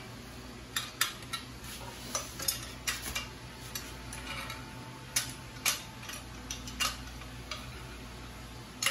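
Scattered light metallic clicks and clinks of a hand tool on the exhaust header nuts of a 150cc single-cylinder motorcycle engine as the new stainless header is tightened evenly at the cylinder head, over a steady low hum.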